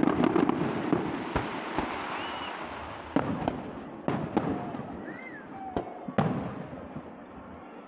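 Aerial firework shells bursting: a flurry of crackling at the start, then a handful of sharp bangs, the loudest about three, four and six seconds in, each followed by a fading rumble.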